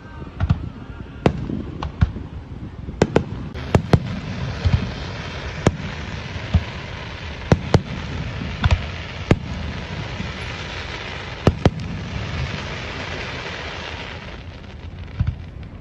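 Aerial fireworks shells bursting overhead: an irregular run of a dozen or more sharp bangs over a low rumble. A steady hiss fills in between the bangs from about four seconds in until shortly before the end.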